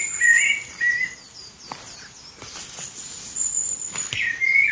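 Birds singing: short whistled phrases at the start and again near the end, over a thin, high, steady note, with a few faint clicks in the quieter middle.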